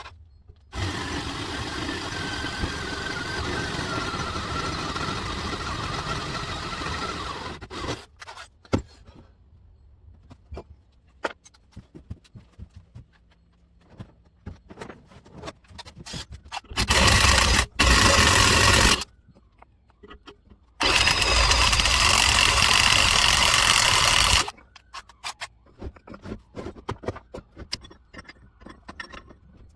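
Handheld power drill run in three bursts, boring holes through metal, with clicks and knocks of handling between the bursts.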